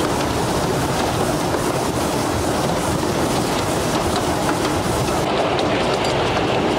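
Narrow-gauge (2 ft) steam train running along the track: a steady rumble of wheels on rail with faint rail-joint clicks. About five seconds in the noise becomes duller, losing its hiss.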